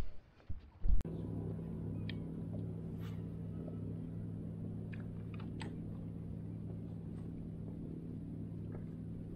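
A boat motor running at a steady hum, setting in suddenly about a second in after a thump, with a few faint clicks over it.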